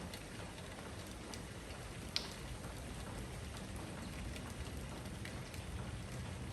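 Steady rain shower falling, an even hiss dotted with the small ticks of individual drops hitting surfaces. One sharper, louder tick stands out about two seconds in.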